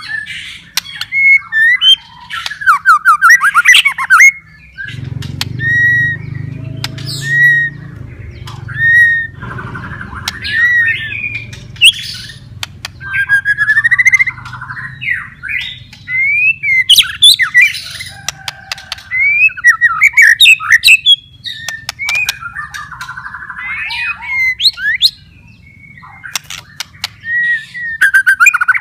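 White-rumped shama singing a loud, varied song: quick whistled phrases that rise and fall, mixed with sharp clicking notes.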